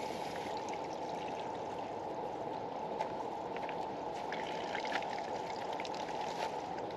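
Water running steadily through a new three-stage hose filter setup and out of the line, a steady rush of flowing water: the first flush of the new filter cartridges, which sends out black water.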